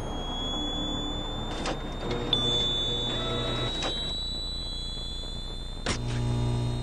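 Eerie electronic sound-design underscore: a thin, high tone slowly rising in pitch over a low hum, cut by a few short whooshing hits.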